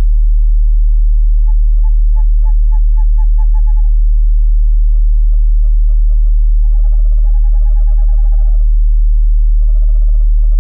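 Owl calls: several bursts of rapid, short repeated notes, with pauses between them. Under them runs a loud, steady, deep tone.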